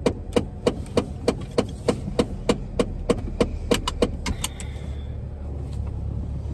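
Car turn-signal indicator ticking evenly about three times a second, then stopping about four and a half seconds in, leaving the low rumble of the car underway.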